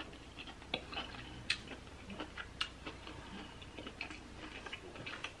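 Close-miked chewing of king crab meat: faint, scattered wet mouth clicks and smacks, a few a second.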